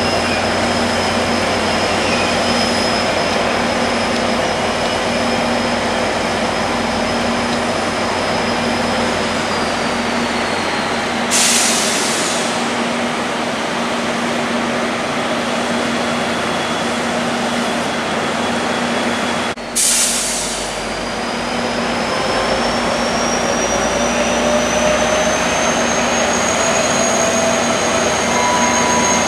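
Two EMD F40PH-2 diesel locomotives running under load as they pull a long passenger train slowly out of the station: a steady engine drone with a high whine that falls, then rises again in the second half. Two short bursts of hiss, about a third of the way in and again about two-thirds in.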